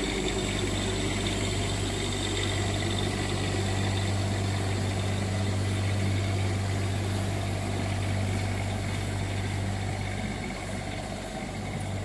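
Diesel engine of a 2020 Forest River Berkshire XL 37A motorhome (380 horsepower) running as the coach drives slowly across the floor, a steady low hum that eases off slightly near the end as it moves away.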